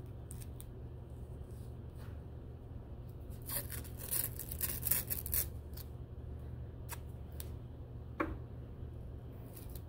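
Adhesive medical tape being torn and handled, with a short rough ripping run about three and a half seconds in and a few small clicks, over a steady low room hum.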